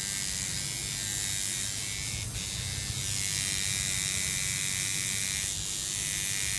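Tattoo machine buzzing steadily as the needle works into the skin.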